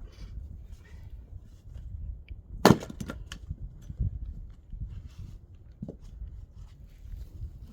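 An axe strikes firewood once, a single sharp loud chop about a third of the way in, followed by a few lighter knocks of wood.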